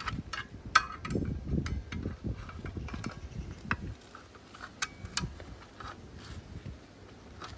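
Gloved hands working a blade wrench on the arbor bolt of a Dewalt circular saw: rubbing and handling noise with a few sharp metallic clicks and clinks scattered throughout as the wrench is fitted and the bolt is tightened.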